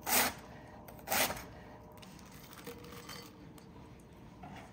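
Large kitchen knife slicing through a red cabbage onto a wooden cutting board: two sharp cuts about a second apart, then the slicing stops.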